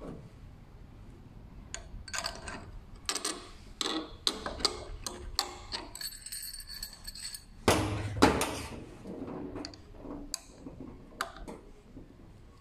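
Irregular metal clinks, taps and knocks from steel parts and an Allen key being handled while a replacement fixed blade is fitted to an electric pruning shear head held in a bench vise. A metal part rings briefly about six seconds in, and the loudest knocks come about eight seconds in.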